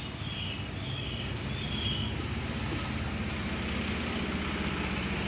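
Steady background noise with a low hum underneath, with a few faint short high tones in the first two seconds.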